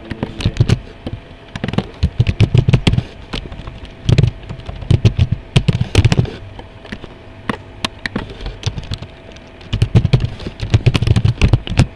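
Typing on a computer keyboard in quick bursts of key clicks separated by short pauses.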